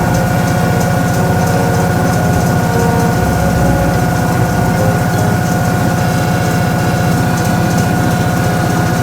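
Toshiba ZABOON top-loading washing machine running: a steady motor hum with a rapid, even pulsing and a constant whine held at one pitch.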